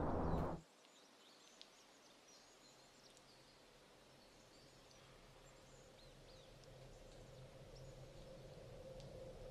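A loud low drone cuts off abruptly about half a second in, leaving faint woodland ambience with scattered small birds chirping. A low drone slowly swells back up toward the end.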